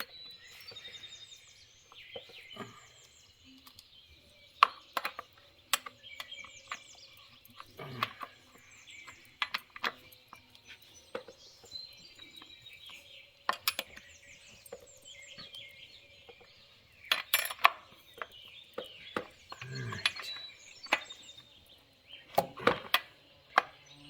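Scattered metallic clinks and knocks as a chainsaw's bar and chain are handled and worked on with hand tools, coming in small clusters with the sharpest ones near the end.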